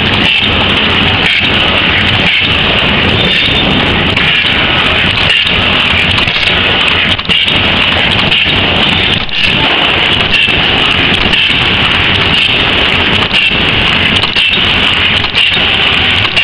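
Automatic paper cup forming machines running at speed: a loud, dense mechanical clatter with a regular beat about once a second.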